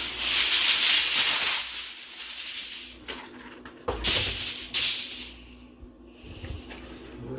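Loud shaking, rustling noise for the first second and a half, then fainter rustling with two sharp knocks about four and five seconds in.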